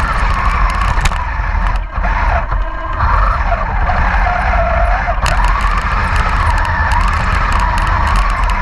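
Radio-controlled Panther tank's electric drive motors and gearboxes whining, the pitch gliding up and down as it drives and turns, over a steady low rumble, with a short dip about two seconds in.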